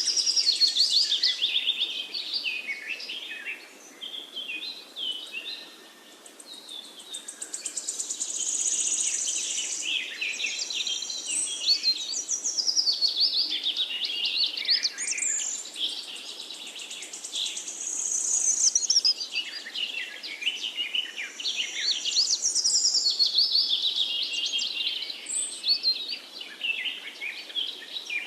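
Songbirds singing and chirping in rapid, warbling phrases that overlap one another, with short lulls about four and six seconds in.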